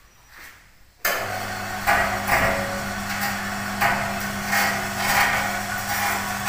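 Small electric wire-rope hoist (winch) of a mini goods lift switched on about a second in. It runs with a steady hum and a regular clanking knock about every two-thirds of a second as it winds its cable.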